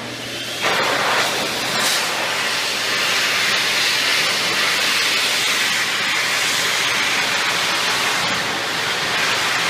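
Electric hand dryer running: a loud, steady rush of air over a low motor hum, stepping up in level about half a second in.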